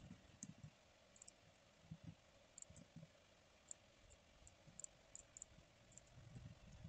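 Faint, irregular clicks of a computer keyboard and mouse as text is typed and pasted into fields, with a few soft thumps.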